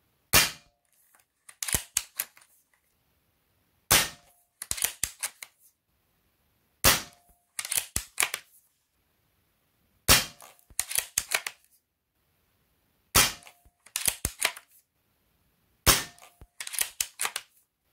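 Diana Mauser K98 pre-charged pneumatic air rifle in .22 firing six shots, about one every three seconds. Each sharp report is followed by a short run of metallic clicks as the bolt is cycled to feed the next pellet from the magazine. These shots come late in the string, where the velocity is starting to drop off.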